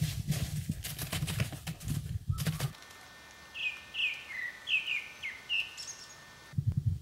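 A low rumble with a run of sharp knocks and rustles, then, after a sudden change, a small bird giving about seven short, falling chirps over two seconds against quiet woodland; the rumble comes back near the end.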